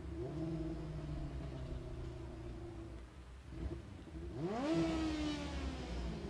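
Micro midget race cars' 600cc motorcycle engines idling, with one engine revved sharply about four and a half seconds in and then easing back down.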